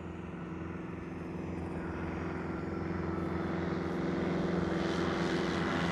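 Piper Super Cub light aircraft on its takeoff run and lift-off, its propeller engine running steadily and growing gradually louder as it comes closer.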